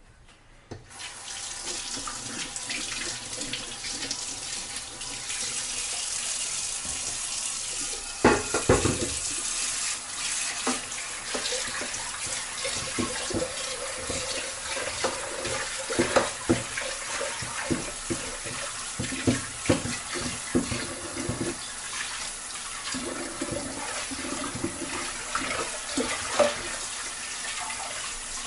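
Kitchen tap turned on just under a second in, running steadily into a sink while a bowl is washed. From about 8 s on there are repeated knocks and clatter as the bowl is handled in the sink.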